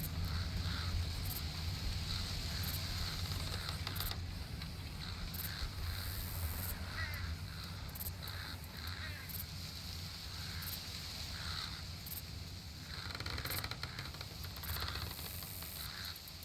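Nature ambience: birds calling in short, repeated notes, denser near the end, over a steady low rumble and a steady high hiss.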